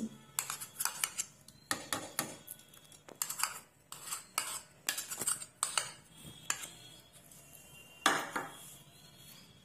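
Metal spoon clinking and scraping as butter is scooped from a plastic container and knocked off into a plastic mixing bowl: a run of irregular light knocks, with a sharper knock about eight seconds in.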